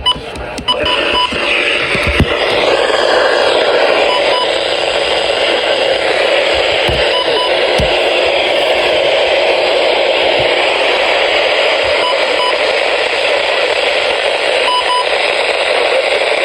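Steady radio static from a weather radio receiver tuned to a weak NOAA Weather Radio station, with a few faint short blips and low knocks.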